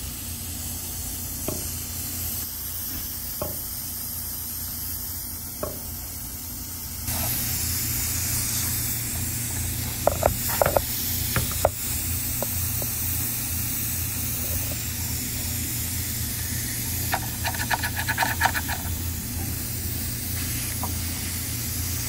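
Refrigerant hissing steadily out of a leak in a Carrier unit's aluminum evaporator coil, a blowing leak that has left the system low on refrigerant. The hiss gets louder about seven seconds in, over a low steady hum. A few sharp taps come around ten seconds in, and a quick run of ticks comes later.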